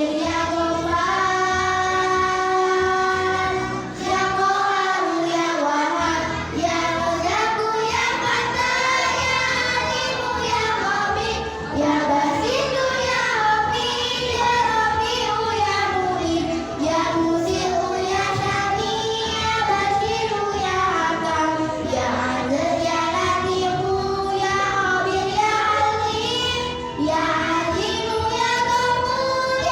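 A child singing a melody over backing music, with long held notes that glide up and down.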